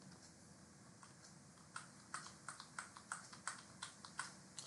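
Faint computer keyboard keystrokes: a run of about fifteen quick taps, some five a second, starting nearly two seconds in.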